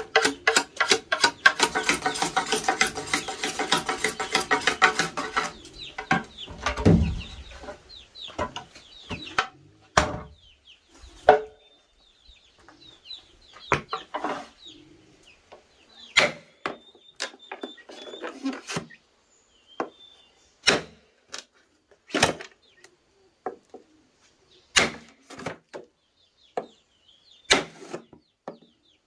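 Music for the first few seconds, then sharp wooden knocks and taps every second or two as wood is worked by hand, with a heavier thump about seven seconds in. Faint bird chirps come through between the knocks.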